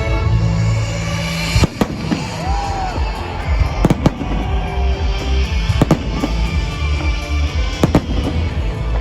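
Fireworks bursting in the sky, a handful of sharp bangs a second or two apart, over music.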